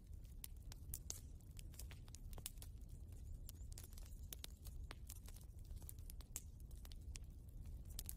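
Faint campfire crackling: irregular sharp pops and snaps scattered throughout, over a steady low rumble.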